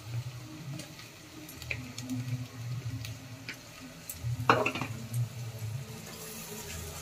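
Ginger-garlic paste being scraped from a bowl and stirred with a spoon into onions frying in an aluminium pressure cooker: light sizzling with clinks and scrapes on the pot, and one louder knock a little past halfway.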